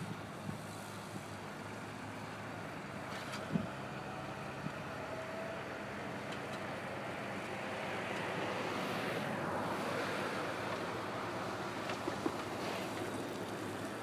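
Heavy construction machinery running steadily: a low engine drone under a haze of noise, swelling a little past the middle, with a few faint knocks.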